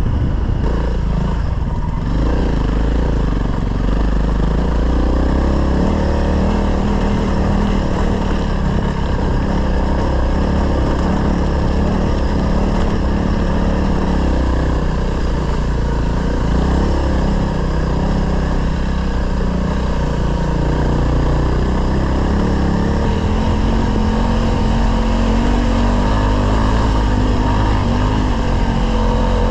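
Dual-sport motorcycle engine running under way, its pitch drifting up and down with the throttle.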